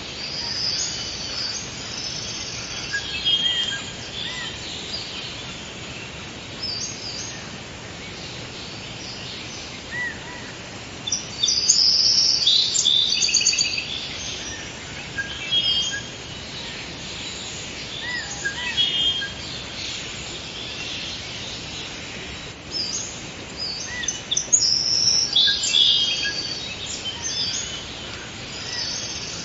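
Forest ambience of several songbirds chirping and singing over a steady background hiss, with busier bursts of calls about twelve seconds in and again near the end.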